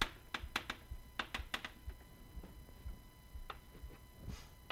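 Chalk tapping and clicking against a blackboard while a formula is written: a quick run of sharp taps in the first second and a half, then only an occasional single tap.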